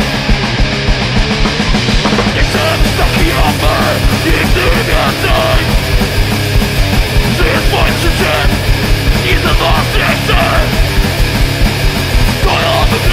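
Hardcore punk band playing loudly: distorted guitars, bass and drums, with shouted vocals coming in a few seconds in.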